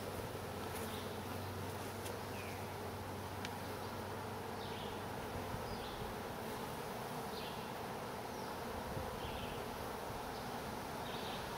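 Many honeybees buzzing steadily over the open frames of a nuc hive, a continuous, even hum.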